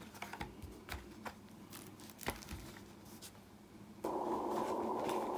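Cardboard KeyForge deck boxes handled on a cloth-covered table: faint scattered clicks and taps as they are set down and picked up. About four seconds in, a steady dull hiss starts suddenly and holds.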